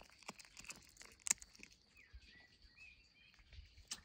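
A cat chewing and tearing at a raw fish: a run of faint wet clicks and crunches, the sharpest about a second in.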